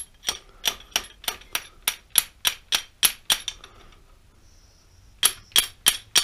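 Small hammer tapping a copper nut threaded on the end of a lathe lead screw, driving a keyed gear onto the shaft: sharp ringing metallic taps at about three a second. The taps stop for nearly two seconds past the middle, then start again.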